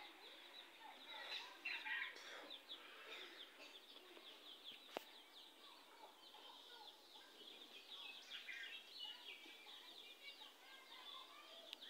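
Faint chorus of birds chirping in quick, short high notes, with a single sharp click about five seconds in.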